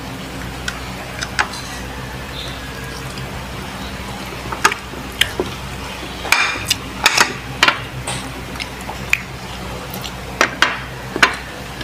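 Close-miked eating sounds: irregular wet smacks and clicks of chewing and of fingers handling saucy meat and rice, over a steady low hum.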